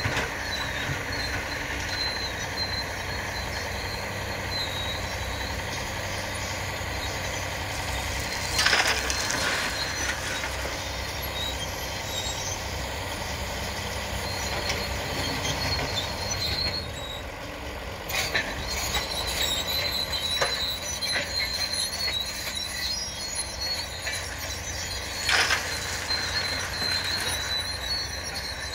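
Doosan DX140 wheeled excavator's diesel engine running steadily under working load as it digs and swings, with a faint steady high whine. Three brief louder crunches come from the bucket working the dirt, about 9, 18 and 25 seconds in.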